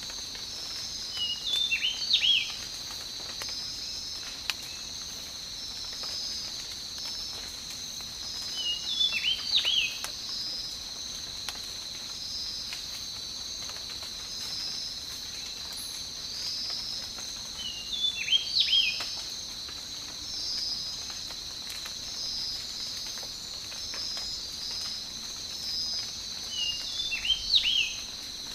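Tropical night ambience: a steady, high insect chorus, one part trilling continuously and another pulsing just above it, over a faint patter. A bird gives a short phrase of quick sweeping notes four times, about every nine seconds.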